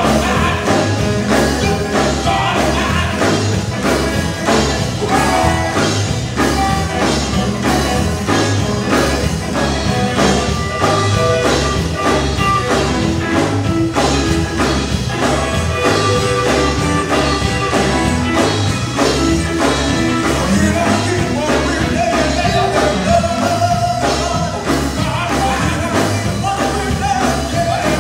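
Live gospel music: male singers at microphones over a drum kit and guitar, playing with a steady, driving beat.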